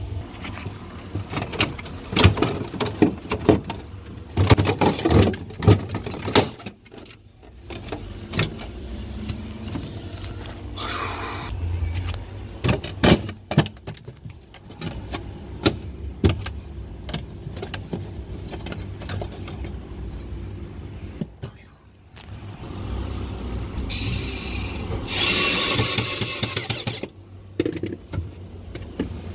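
Refrigerator freezer fan housing being reassembled: clusters of clicks and knocks as plastic panels and parts are handled and fitted, over a steady low hum. Near the end there are a few seconds of dense rasping noise.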